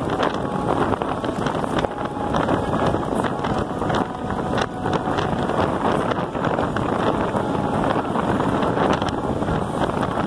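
Wind buffeting the microphone of a camera riding on a moving electric bike, with the tyres crunching over a gravel road: a steady rush with many small clicks through it.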